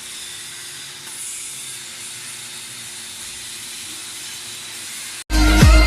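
Welding arc on pipe giving a steady hiss. About five seconds in it cuts off abruptly and loud electronic music with a heavy bass comes in.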